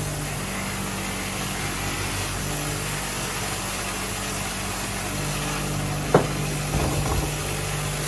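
Record Power RSBG8 bench grinder running steadily with an even motor hum, while a bar of green polishing compound is pressed against its spinning buffing wheel. A single sharp knock comes about six seconds in.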